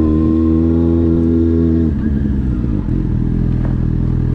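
Motorcycle engine running at steady revs while riding. About two seconds in, its note drops to a lower steady pitch.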